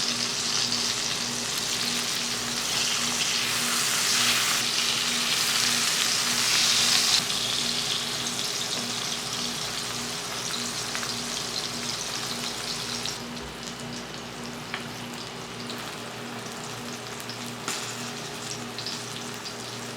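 Marinated fish fillets sizzling as they shallow-fry in hot coconut oil in a pan. The sizzle is loudest in the first seven seconds and eases off after about thirteen seconds, with a couple of light clicks near the end.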